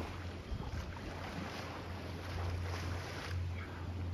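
Wind on the microphone and small waves lapping at a pebble shore, over a steady low drone.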